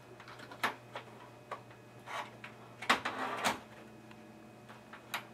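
Scattered plastic clicks and a scraping, rustling stretch as cable connectors and clips are handled and pulled inside a desktop computer case.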